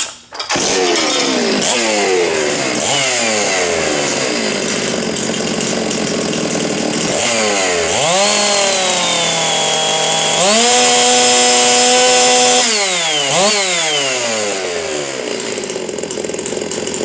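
Stihl MS 660 two-stroke chainsaw, ported and decked with altered timing and an opened-up muffler, starting about half a second in and being revved. Quick throttle blips fall back each time, then two longer held runs at wide-open throttle in the middle, with the saw turning about 14,700 rpm, then more short blips.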